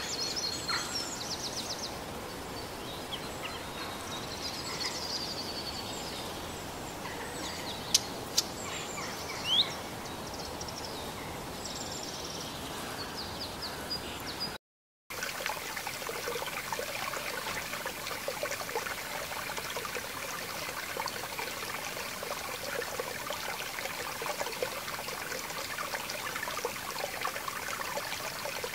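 Birds chirping over outdoor air, with two sharp knocks about a third of the way in; after a short dropout near the middle, a small woodland stream runs and babbles steadily.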